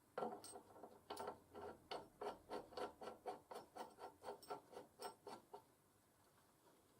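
A rapid, even run of mechanical clicks from a hand tool being worked, about three to four a second, stopping about five and a half seconds in.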